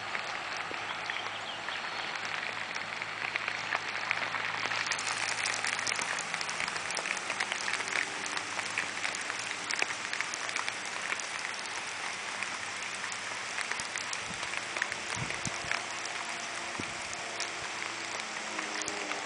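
Faint drone of a distant biplane's engine, its pitch wavering and rising near the end as the plane loops, under a steady crackling hiss.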